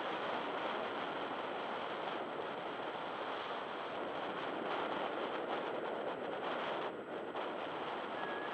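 Steady rushing wind buffeting the microphone.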